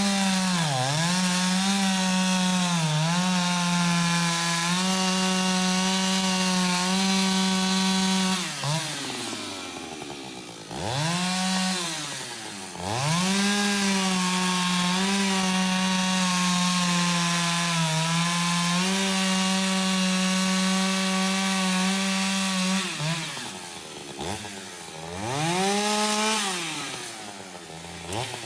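Antique Stihl two-stroke chainsaw cutting wood at full throttle, its pitch dipping briefly as the chain bites. Twice, about a third of the way in and again near the end, the revs fall away as the throttle is let off. Each time the saw revs back up into the next cut.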